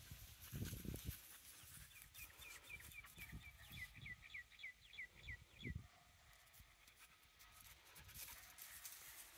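A bird calling faintly: a run of about fifteen short, high notes, each sliding downward, about four a second, growing louder toward the end before stopping.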